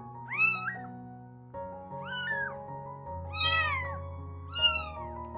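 A week-old kitten mewing four times: short high cries that rise and fall in pitch, each under a second long, over background music with held notes.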